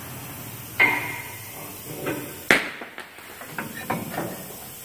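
Metal clanks and knocks from work on a pickup's front suspension, tools striking and handling steel parts: a ringing clank about a second in, a sharp loud strike about two and a half seconds in, then a few lighter knocks.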